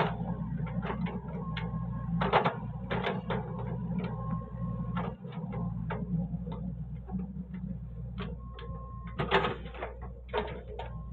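XCMG XE55DA mini excavator's diesel engine running steadily, with a thin whine that comes and goes and repeated clanks and knocks as the bucket scrapes and pushes soil.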